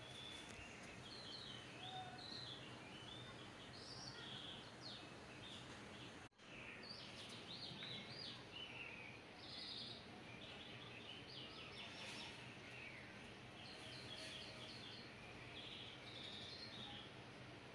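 Faint birdsong: many short, quick chirps and twitters that keep going, breaking off for an instant about six seconds in.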